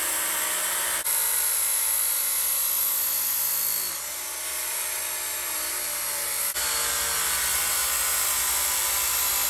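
Handheld electric belt sharpener running a 120-grit belt against the steel edge of an axe, grinding the bevel: a steady motor whine with the hiss of the belt on the steel. The level shifts a little as the contact changes, with a brief dip about a second in and a lower stretch in the middle.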